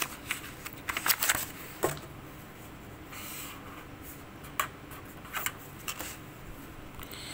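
A pen writing on paper: short scratchy strokes and taps, with one slightly longer stroke near the middle as a line is drawn.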